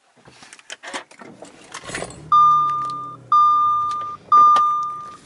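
Clicks and handling noises as the Audi S4's start/stop button is pressed to switch the car off, then the car's warning chime: a steady beep repeated three times, each a little under a second long, about once a second.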